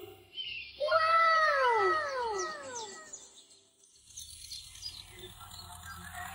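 Several overlapping cat meows, each rising and then falling in pitch, starting about a second in and lasting around two seconds. From about four seconds in, the low steady hum of a small toy tractor's motor as it drives in.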